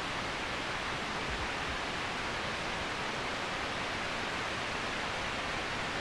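Waterfall, falling water rushing steadily as an even hiss-like roar.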